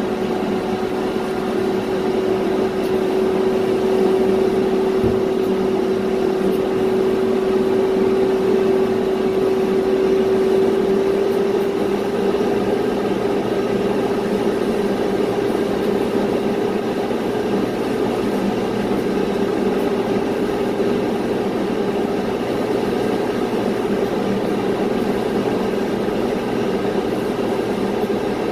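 Steady engine noise during an airliner pushback, from the pushback tug's engine and the Boeing 787-9's auxiliary power unit. One held tone runs through it and rises slightly about halfway through.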